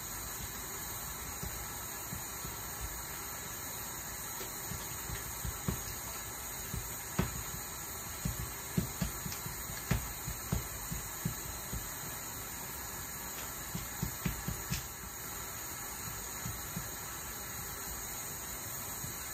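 Irregular soft, dull taps of hands pressing and patting rougag dough flat on a hot griddle plate, over a steady hiss. The taps come in clusters through the middle of the stretch.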